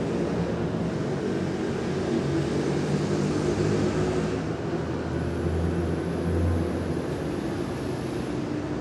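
A steady low drone with several held tones under a soft hiss, swelling a little around the middle, with a faint thin high whine joining in for a few seconds in the second half.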